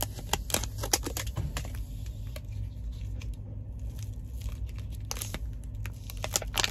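Freeze-dried beef stew ration pouch being cut open with a knife and handled: crinkling, tearing crackles of the pouch material, bunched at the start and again near the end, over a steady low hum.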